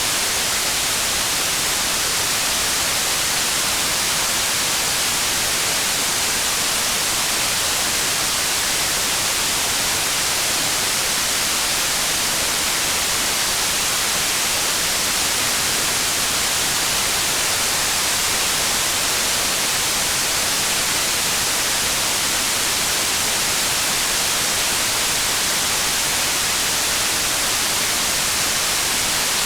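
Steady rain, an even unbroken hiss strongest in the high range, with no separate drops or thunder standing out.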